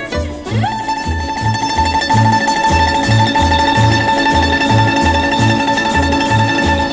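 Greek sirtaki instrumental led by bouzouki: the bouzouki slides up about half a second in and holds one long high note over a steady alternating bass accompaniment.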